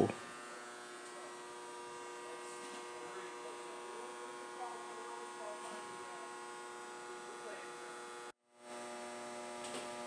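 Steady electrical mains hum, a stack of even tones from the energised burn-in rack and oven equipment. It drops out for a moment about eight seconds in, then resumes with a slightly different pitch mix.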